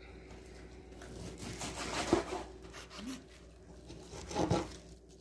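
Iceberg lettuce leaves crinkling and tearing as hands pull the head apart on a wooden cutting board, with two louder crunches, about two seconds in and again near the end.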